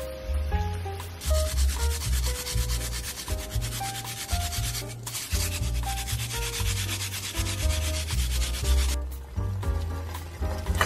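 White radish (daikon) being grated on a grater: rapid, even scraping strokes that start about a second in and stop near the end, over background music with a bass line.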